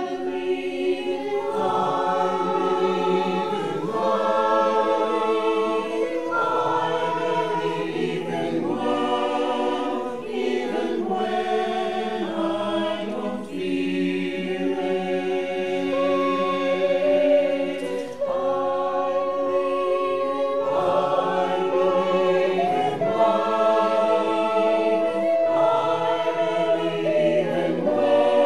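Virtual choir of mixed men's and women's voices singing a slow a cappella choral piece, separately recorded parts mixed together, in sustained phrases a couple of seconds long.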